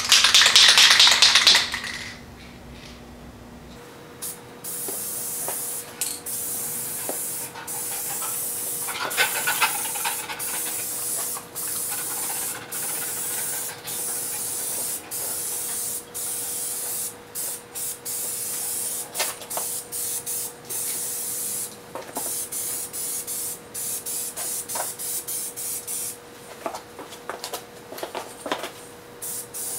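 Aerosol spray-paint can hissing in a series of spray passes, the hiss cutting out briefly between strokes as the nozzle is released, laying down a first light coat. It opens with a loud burst of noise lasting about two seconds.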